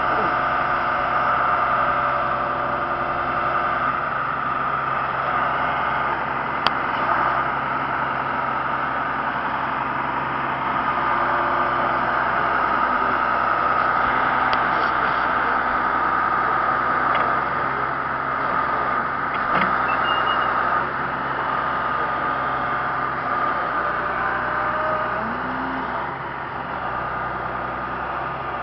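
Backhoe's diesel engine and hydraulics running steadily under load while digging a trench, with a steady high whine over the engine and one sharp knock about seven seconds in.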